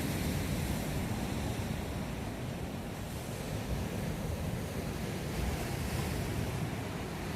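Ocean surf washing onto the beach in a continuous roar of noise that swells and eases gently, with wind rumbling on the microphone.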